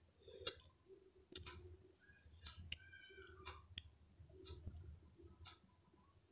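Faint, scattered clicks and light scrapes of a spatula against the cooking pan as it moves pieces of fish in the curry.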